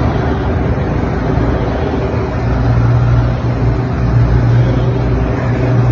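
Motorcade of a police SUV and black SUVs and vans driving past on a city street: steady engine and tyre noise, with a low engine hum growing stronger about halfway through.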